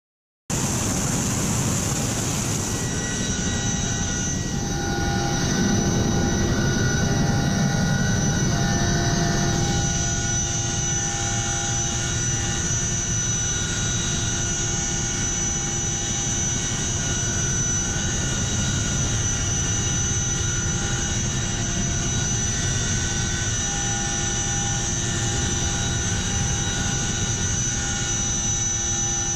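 CH-47 Chinook helicopter heard from inside its cabin with the rear ramp open: its twin turboshaft engines and drive train give a loud, steady whine with several high tones over a heavy low rumble. The sound cuts in suddenly about half a second in and swells a little for a few seconds after about five seconds.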